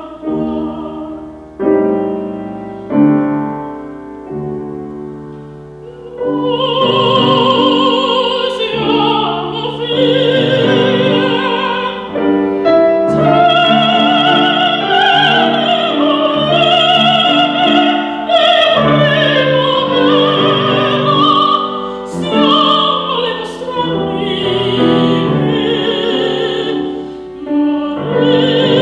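Woman singing in operatic style with wide vibrato, accompanied by grand piano. The piano plays alone at first, and the voice comes in about six seconds in.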